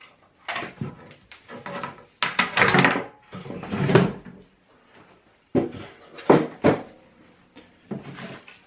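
Knocks, clicks and rustling from handling: the lid of a home-made UV box being opened and the plastic mouse parts taken out, with a few sharp knocks and two longer rustling spells.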